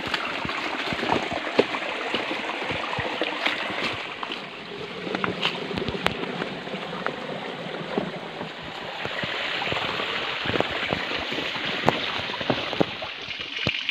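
A small stream running, with footsteps and brushing through dry bamboo leaves and undergrowth that give many irregular crackles and snaps.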